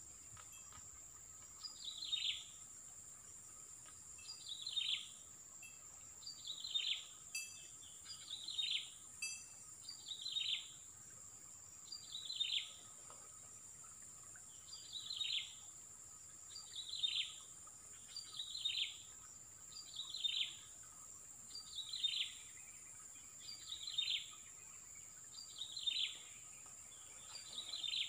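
A bird calling over and over, one short falling note every couple of seconds, over a steady high insect drone.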